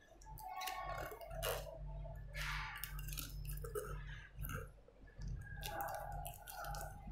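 Glass laboratory apparatus, a beaker with a funnel and test tube, being handled on a table: scattered small taps, scrapes and clinks over a steady low hum.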